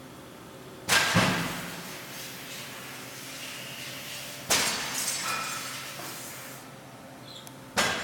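Three loud metallic clunks, each ringing out for a second or two, from a Kasuga Quantum Q 2000V vertical machining center, over a steady low running hum.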